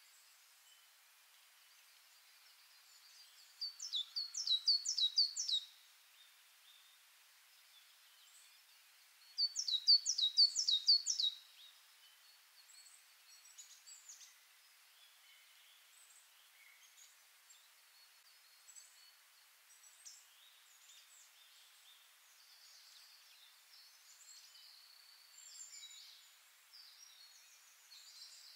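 Birdsong: a small bird sings a short phrase of five or six quick, high, down-slurred notes, twice about six seconds apart and once more near the end. Fainter scattered chirps of other birds fill the gaps between.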